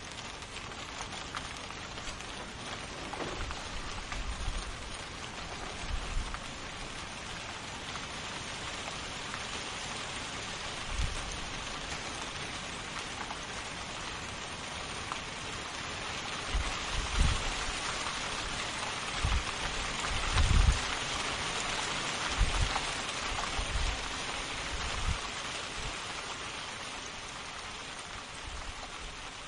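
Steady rain pouring down. Several deep low thumps or rumbles come in the second half, the strongest about two-thirds of the way through.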